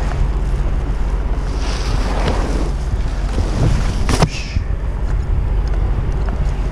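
Wind buffeting the microphone over a steady low rumble. About four seconds in there is one sharp knock as a bundle of asphalt shingles is handled on the roof deck.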